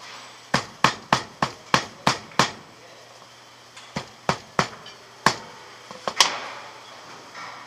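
Wooden mallet beating the tucked splice of a three-strand rope grommet to fair the tucks, blows landing on the rope against the wooden bench. A quick run of about seven blows, then a few more spaced out, the last about six seconds in the loudest.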